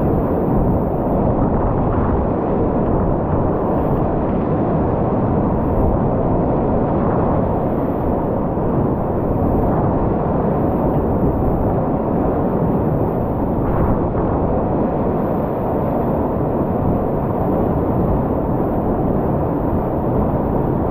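Whitewater rushing steadily over a river play wave, a continuous low, even noise with no breaks.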